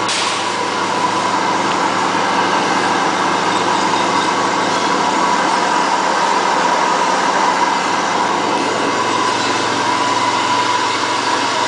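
Stainless-steel circular vibro screen running while sieving powder: a steady mechanical hum with a constant high whine.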